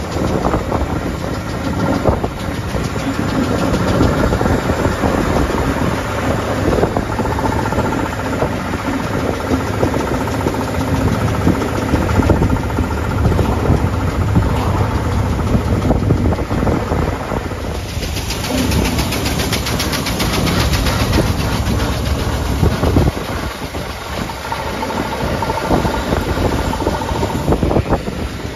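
Veteran car's engine running, heard on board over road noise, with a rush of hiss about two-thirds of the way through and the deep low running easing off soon after.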